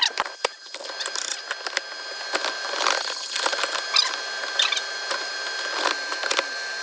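Clinks, knocks and scrapes of metal transmission parts being handled and worked apart, with several short squeaks.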